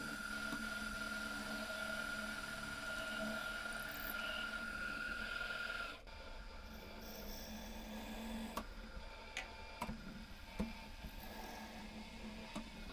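Drill press running while a small twist drill cuts into a steel block held in a machine vise, a steady whine with a low hum. About six seconds in the sound drops to a quieter run with a few scattered clicks and taps.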